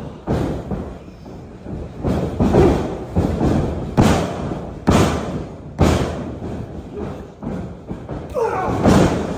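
Pro wrestling strikes landing: about half a dozen sharp slaps and thuds of hands and forearms hitting bare chests and bodies, with a shout from a wrestler or the crowd near the end.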